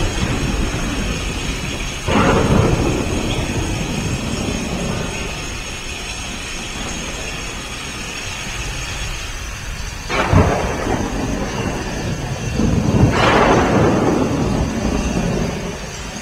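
Recorded thunderstorm sound effect with three rolls of thunder over steady noise. The rolls come about two seconds in, about ten seconds in with a sharp crack, and about thirteen seconds in, each one rumbling and then dying away slowly.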